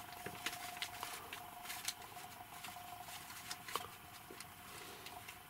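Faint rustling and scattered light ticks as cats move about on blankets, one nosing at a wire dog muzzle. A faint steady hum fades out about halfway through.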